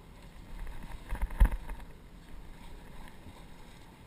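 Low rumble of wind and boat noise on a GoPro's microphone, with a sharp knock about a second and a half in.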